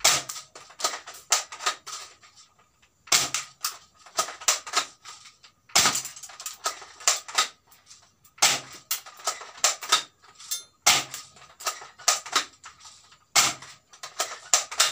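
D'Cobra M416, an AR-15-style spring-powered airsoft rifle with a plastic body, being cocked and fired over and over. Its charging handle is pulled back and released for each shot, giving bursts of sharp plastic clicks and clacks about every two and a half seconds, six times in all.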